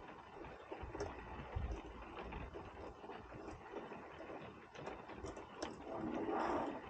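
Faint handling noise from fitting a van curtain track: scattered light clicks and rustling, a little louder near the end.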